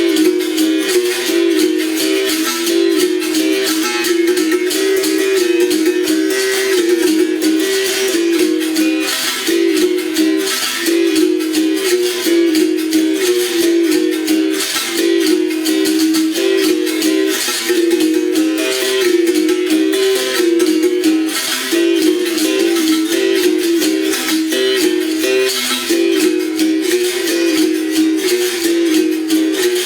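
Bamboo berimbau being played in a steady rhythm, its struck wire ringing and switching back and forth between two notes, with a caxixi shaker rattling along on each stroke.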